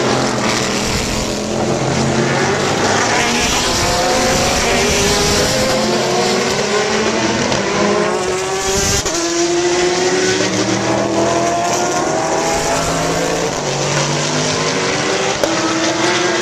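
Sports prototype and GT race cars running at full throttle, their engine notes climbing and dropping back again and again as they accelerate and shift up through the gears, with several cars overlapping.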